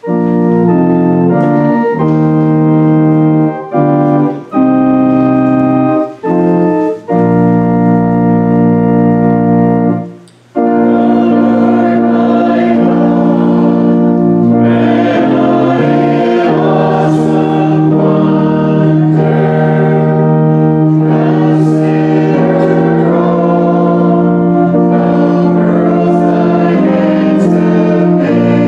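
Organ playing a hymn introduction in held chords, with short breaks between phrases. About ten seconds in, the congregation joins and sings the hymn with the organ.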